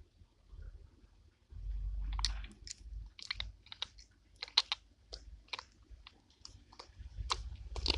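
Slime with tiny foam beads being squeezed and stretched by hand, giving off a run of sharp, uneven crackling clicks and pops over a low rumble of handling; it starts about a second and a half in. The pops are loud.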